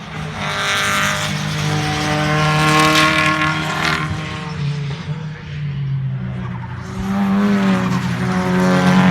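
Race car engine accelerating hard, its pitch climbing for a few seconds and falling away about four seconds in, then climbing again from about seven seconds in.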